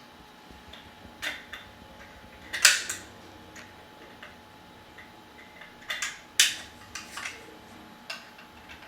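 Metal parts of a Suomi 72-round drum magazine clicking and clacking as it is handled during reassembly, with two loudest clacks about two and a half and six and a half seconds in.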